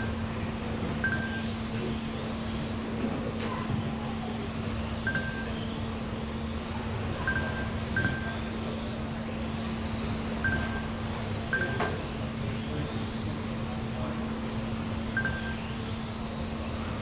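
Electric GT12 1/12-scale RC racing cars whining around the track, their motor pitch rising and falling as they pass. About eight short electronic beeps come at irregular intervals from the lap-timing system as cars cross the line.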